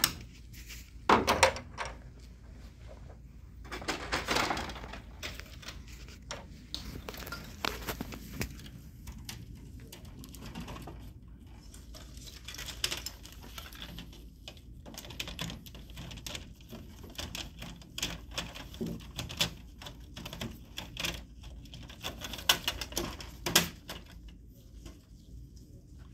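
Irregular clicks, clacks and knocks of the HP LaserJet printer's plastic rear door and covers being handled and fitted into place, with a screwdriver set down on the bench. Louder knocks come about a second in and twice near the end, with a short scrape around four seconds in.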